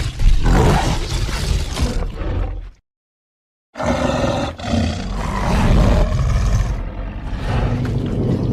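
Carnotaurus roar sound effects: one roar ends about three seconds in, and after a second of dead silence a second, longer roar begins and carries on.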